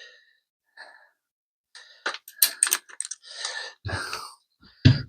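A hand screwdriver tightening a screw: a run of short clicks and scrapes, with a few heavy breaths and a couple of dull knocks near the end.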